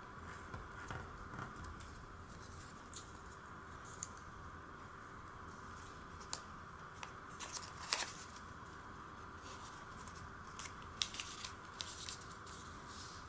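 Origami paper being handled and pressed into place: faint rustles and crisp paper crinkles, loudest in a burst about eight seconds in and in a cluster near the end, over a steady faint hiss.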